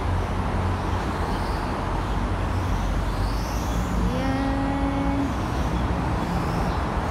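Steady rumble of road traffic from an elevated highway. About four seconds in, a short pitched tone sounds for about a second.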